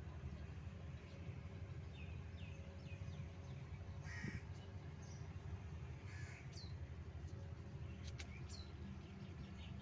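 Birds calling outdoors: several short, high, falling chirps and one harsher call about four seconds in, over a steady low rumble.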